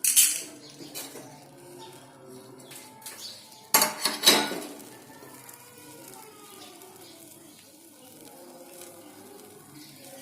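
Kitchen utensils clattering while a kadha (herbal decoction) is made: a sharp clatter at the start, then two more close together about four seconds in.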